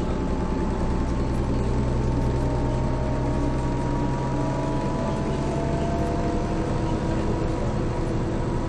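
Mercedes-Benz OM447hA 12-litre six-cylinder diesel and ZF 4HP590 automatic gearbox of a Jelcz M122MB city bus running under way, heard from inside the bus: a steady engine drone with a gearbox whine slowly rising in pitch. About four seconds in, the low engine sound changes and a second, lower whine comes in.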